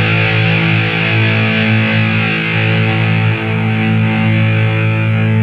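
Thrash metal: distorted electric guitars holding one sustained, ringing chord, with no drum hits.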